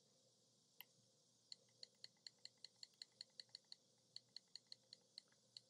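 Faint, quick clicks of a vape box mod's wattage adjustment buttons being pressed repeatedly, about five a second for a few seconds, with a couple of single clicks before.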